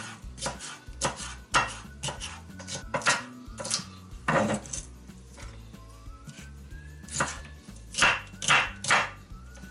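Chef's knife chopping a red bell pepper into small cubes on a cutting board: a run of irregular knife strikes against the board, pausing for a couple of seconds midway before the chopping resumes.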